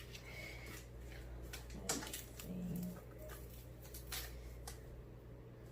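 Packaging being unwrapped by hand: scattered sharp crackles and clicks of plastic wrap and tape, over a steady low hum, with a short low tone about two and a half seconds in.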